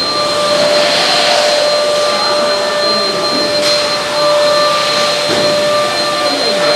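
A loud, steady electric-motor whir: an even rush of air with a few steady whining tones held over it, and faint voices far behind.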